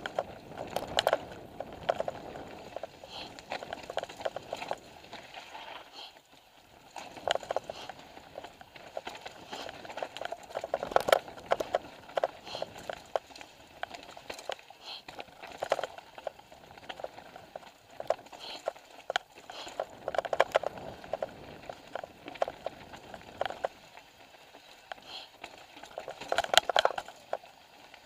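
Mountain bike riding down a rough dirt trail: tyres rolling over dirt and roots, with the bike rattling and clattering in quick, irregular knocks as it hits bumps.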